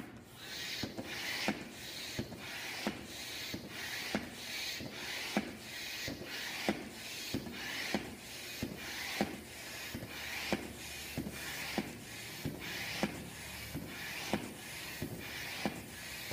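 Hand-operated floor pump inflating a latex balloon: steady rhythmic strokes, about one and a half a second, each a rush of air with a click from the pump.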